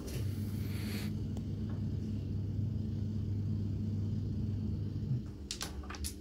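A low, steady rumble for about five seconds, then two sharp clacks near the end as a carrom striker is flicked into the coins and they knock against each other on the board.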